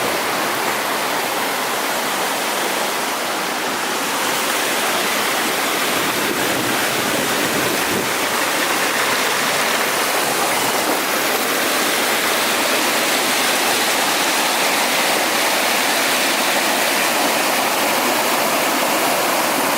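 Small waterfall rushing with a steady, unbroken sound of water.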